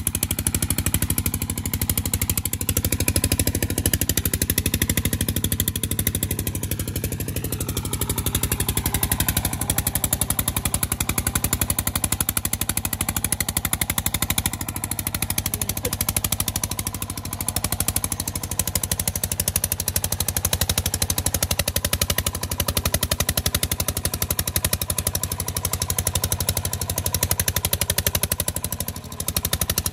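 Single-cylinder diesel engine of a công nông farm truck running under load as it hauls cassava uphill: a steady, rapid chugging.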